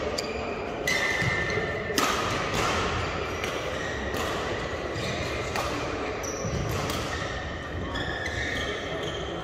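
Badminton hall sounds: a few sharp racket-on-shuttlecock hits, the clearest about two seconds in, and short squeaks of shoes on the court mats, echoing in a large sports hall.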